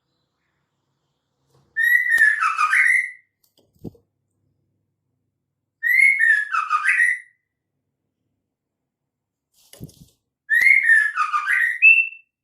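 A female white-rumped shama calling: three short phrases of warbling, gliding whistles about four seconds apart, with a few soft low thuds in the gaps. It is the female call used to draw male shamas into song.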